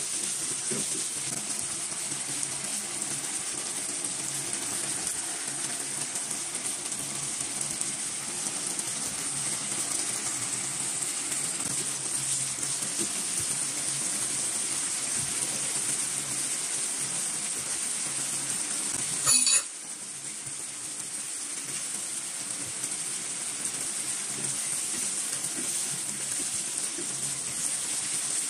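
Carrots and pork frying in sauce in a nonstick pan, a steady sizzle, with a wooden spatula stirring through the food. About two-thirds of the way through, a short loud beep sounds once.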